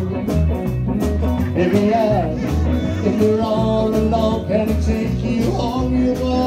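Live band playing a song: singing over guitar and a steady bass line.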